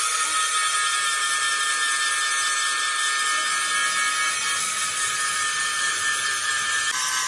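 Electric angle grinder grinding into a steel truck chassis: a steady, loud whine over a hiss, its pitch shifting near the end as the load changes.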